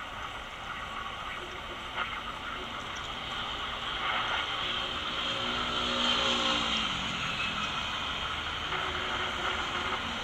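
Steady city street traffic noise, with a motor scooter passing close by about midway, its engine note falling in pitch as it goes past.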